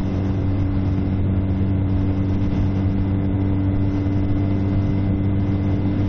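Motorcycle engine running at steady revs while the bike cruises along, its even exhaust note holding constant throughout.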